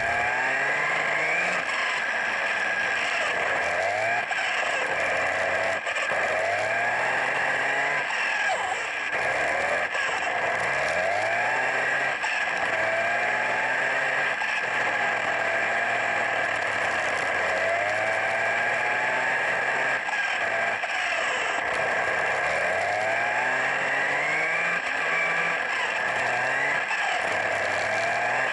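Onboard sound of a WLtoys 104001 1/10-scale electric RC buggy being driven: the motor's whine rises and falls over and over as the throttle is worked. A steady high tone and the rattle and scrape of the tyres and chassis on the dusty concrete run underneath.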